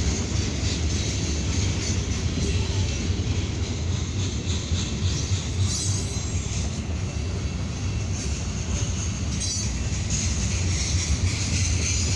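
Freight cars rolling past on the rails, a steady rumble of wheels and cars with no break.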